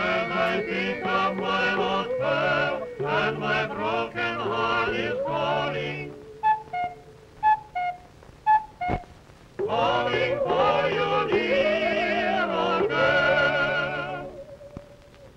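A group of voices singing in harmony with a heavy vibrato, over a band accompaniment with a steady bass line, in an early sound-cartoon soundtrack. The singing breaks off after about six seconds for a few short single notes and one sharp click, then resumes about ten seconds in before fading near the end.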